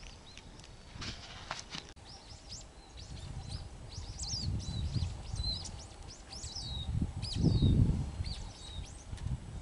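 Small songbirds chirping, a rapid series of short, high, sweeping calls, over a low rumbling noise that swells near the end.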